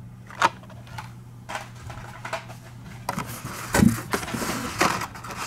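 Rustling and clacking of Hot Wheels cars in their plastic-and-card blister packs being handled and taken from the case. There is a click about half a second in, the rustling grows busier from about three seconds, and a louder knock comes near four seconds, over a faint steady hum.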